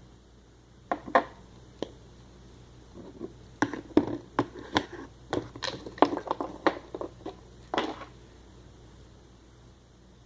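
Homemade slime being mixed in a container: an irregular run of sticky squelches, clicks and taps for several seconds, then it goes quiet near the end.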